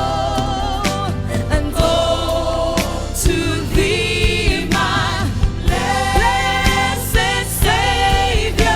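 Gospel worship music: voices singing sustained, wavering notes over a full instrumental accompaniment, with percussive hits throughout.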